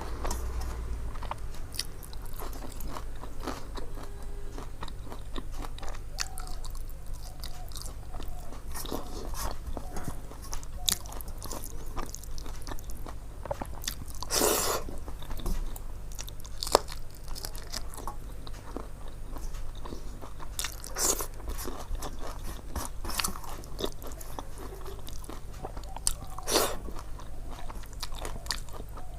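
Close-miked eating: chewing with many small clicks and intermittent crunches, with a few louder crunches about halfway through and near the end, over a steady low hum.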